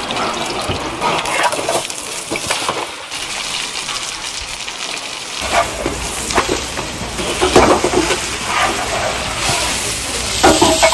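Napa cabbage pancake sizzling in oil in a frying pan, with the pan clattering several times in the second half as the pancake is flipped.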